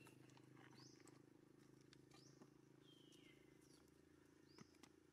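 Near silence: faint outdoor ambience with a steady low hum and four short faint high-pitched chirps, one of them a longer falling call about three seconds in.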